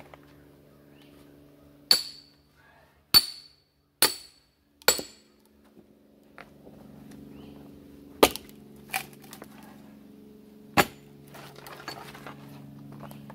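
Sledgehammer striking a steel splitting wedge driven into a sycamore round: sharp metal-on-metal blows with a brief ring, four about a second apart, then three more spaced further apart and some lighter knocks near the end. The stringy sycamore is hard to split, so the wedge takes repeated blows.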